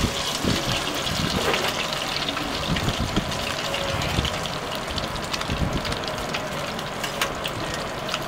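Omelette frying in a pan of hot oil: a steady sizzle with scattered crackles and spits, plus irregular low thumps.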